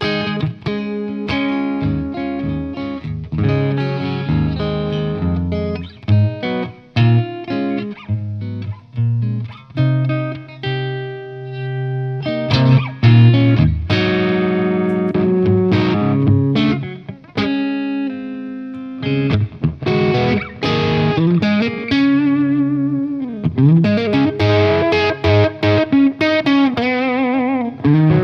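Electric guitar, a Telecaster-style AcePro, played through an Origin Effects Revival Drive overdrive pedal into a VHT amp with a mildly driven tone: strummed chords and riffs, then from about 20 seconds in single-note lines with string bends and vibrato.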